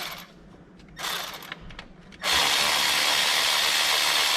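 A few short clinks of a tool being fitted, then about two seconds in a cordless power tool starts and runs steadily, spinning out a corroded 14 mm starter bolt that has already been broken free.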